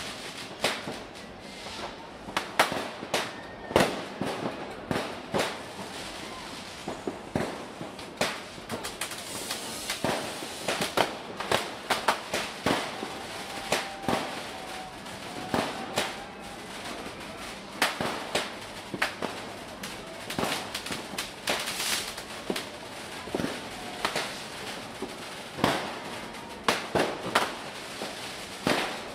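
Fireworks and firecrackers going off across a city: an irregular, unbroken string of sharp bangs, several a second, some much louder than others, over a steady background of far-off crackling.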